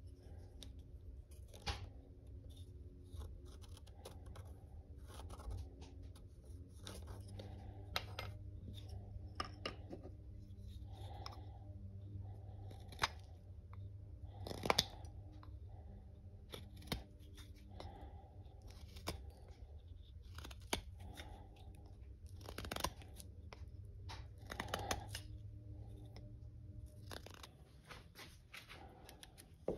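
Carving knife paring thin shavings off the end of a wooden handle: a run of short, irregular scraping cuts with a few sharper ones, over a low steady hum.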